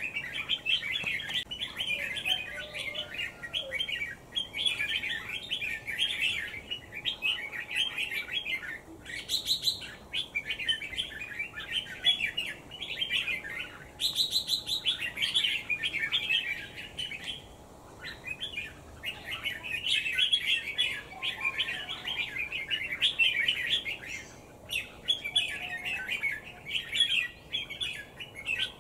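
A small bird chirping and twittering almost nonstop in quick, busy runs, with a few short pauses.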